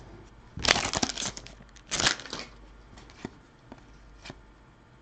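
Foil hockey card pack wrapper crinkling as the stack of cards is pulled out and handled, in two short rustling bursts about a second in and about two seconds in, followed by a few light ticks of cards being handled.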